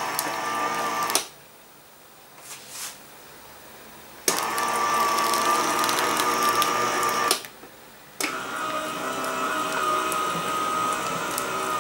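Sizzix Big Shot Express electric die-cutting machine running its motor with a steady whine as it rolls the cutting plates, die and copper embossing foil through to cut the foil. The whine stops about a second in, starts again after about three seconds, stops briefly again and then resumes.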